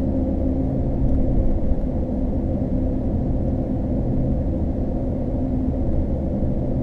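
Ford F-150's 5.0 L V8 cruising with a steady low rumble, heard from inside the cab through a single Flowmaster 50 Series HD Delta Flow muffler with the factory resonator kept. The hum of mud-terrain tyres on the road runs under it.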